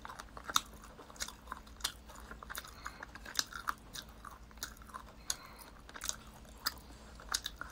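A person chewing grilled meat close to the microphone: irregular wet mouth clicks and smacks, a few a second.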